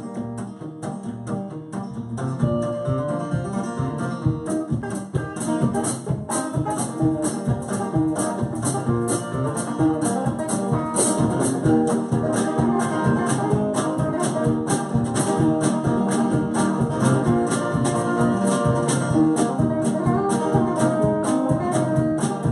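Live band playing an instrumental intro: acoustic guitars strumming and an electric guitar playing over a steady drum beat. The playing fills out about two seconds in.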